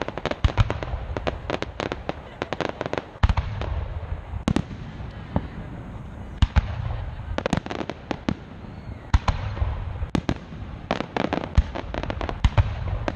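Aerial firework shells bursting in quick clusters of sharp bangs over a low rumble, with short pauses between volleys.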